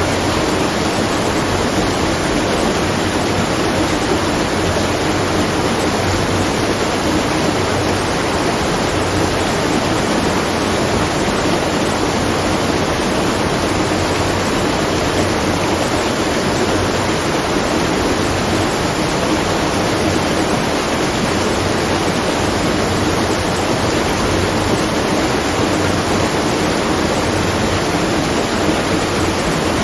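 Water rushing and splashing at a watermill, a steady, unchanging noise with no distinct splashes or knocks.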